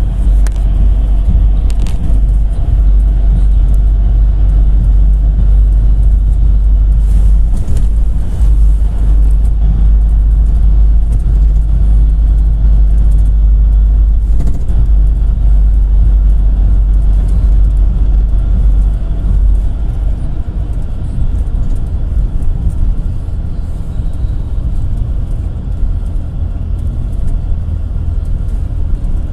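GAZ-A65R52 GAZelle Next minibus driving, heard from on board: a steady low engine and road rumble that eases a little about two-thirds of the way through.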